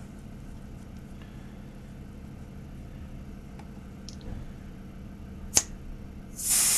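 Air hissing out of a car tyre's valve stem as it is pressed to deflate the tyre for a tyre pressure sensor relearn. A short puff comes about five and a half seconds in, then a loud hiss near the end, over a faint steady hum.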